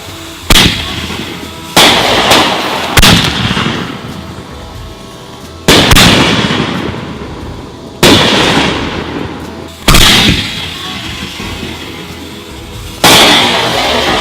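Consumer firework tubes going off: about seven loud, sharp bangs at uneven intervals, each trailing off with a crackling decay.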